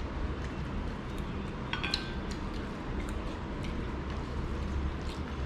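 Tableware clinking while two people eat by hand, with one ringing metal clink about two seconds in and small scattered clicks, over a steady low background hum.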